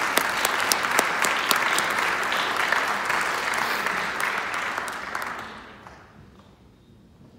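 Audience applauding, a dense patter of clapping that dies away about five to six seconds in.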